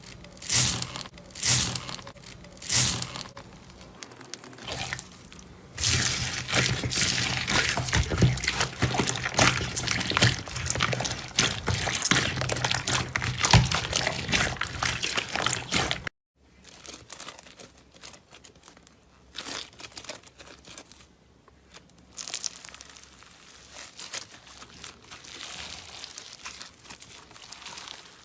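Slime being squished and stretched by hand, with wet crackling and crinkling. A few separate squishes come first, then about ten seconds of dense crackling that cuts off abruptly. Softer, sparser squishing follows.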